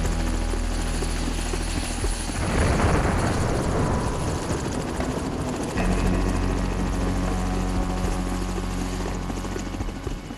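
Helicopter rotors and engine running steadily with a deep, even beat. A rushing swell rises about two to four seconds in, and the sound fades near the end.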